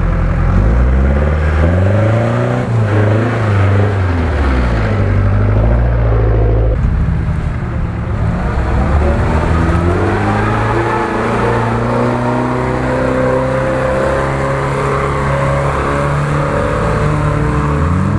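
UAZ-469 off-roader's engine revving up and down in repeated surges as it drives through deep mud, then pulling more steadily with the revs slowly climbing.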